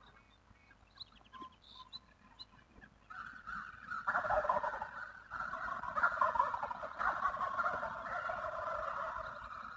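Wild turkey gobbler gobbling several times in quick succession, from about three seconds in, each gobble a loud rattling call. A few faint high chirps come before it.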